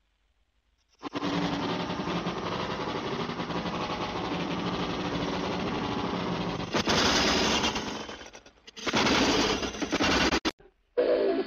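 Steam train sound effect: a fast, dense chuffing clatter that starts about a second in, gets louder past the middle, dips, then returns and cuts off suddenly near the end.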